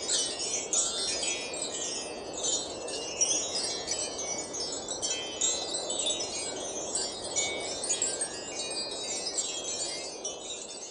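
Wind chimes tinkling continuously in dense, overlapping cascades of high ringing notes, fading out near the end.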